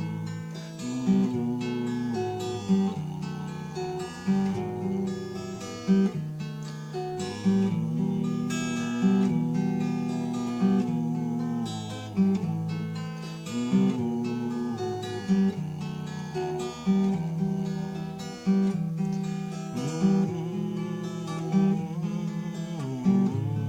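Instrumental interlude of a Russian romance song, led by strummed acoustic guitar with a strong accent about every second and a half.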